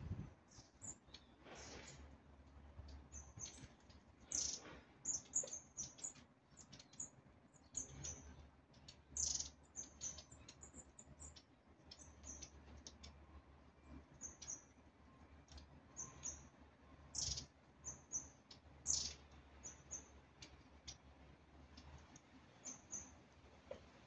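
Long-tailed tits calling: many short, very high, thin calls, some coming in quick runs, at irregular intervals.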